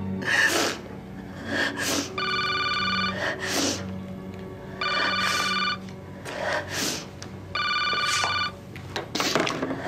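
Desk telephone ringing three times with an electronic trilling ring, each ring about a second long and spaced a few seconds apart, over background music.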